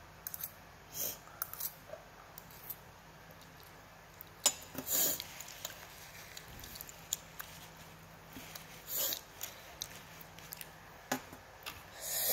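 Quiet sounds of a child eating spicy instant noodles and a piece of fruit: three short breathy mouth sounds, about a second, five and nine seconds in, with light clicks and taps between them.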